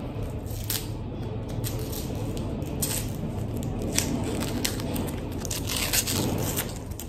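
Paper and foil wrapper of a small chocolate crinkling and tearing as it is unwrapped by hand, in irregular crackles that come thickest in the second half.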